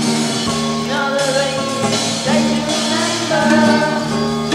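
A band's song from about 1983–84: a singer over electric guitar, bass and drums, the singing line gliding over a steady bass note.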